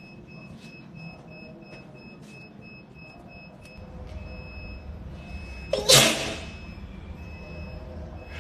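A woman sneezes once, a single sharp burst about six seconds in. Behind it there is a faint, high-pitched tone and a few soft clicks.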